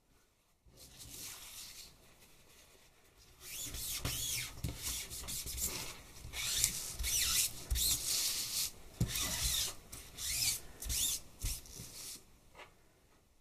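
Stiff card and plastic sheeting rubbing and rustling in irregular bursts as hands press and handle a freshly pulled oil-paint monoprint. The sound starts faintly about a second in, gets louder after a few seconds and stops shortly before the end.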